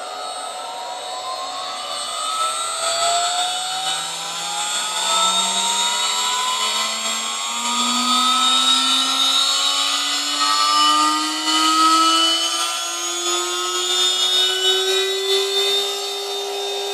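1.5 kW CNC router spindle motor, driven by a variable-frequency drive, speeding up: a whine that climbs steadily in pitch and levels off near the end at full speed, just under 24,000 rpm.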